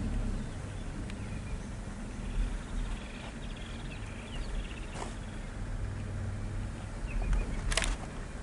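Small birds chirping in the bush over the low hum of an idling vehicle engine, with a couple of sharp clicks near the end.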